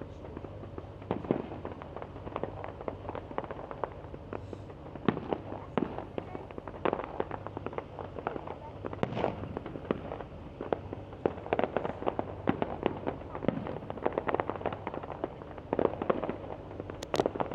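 Fireworks display going off: a rapid, irregular string of bangs and crackles, with clusters of louder reports every few seconds.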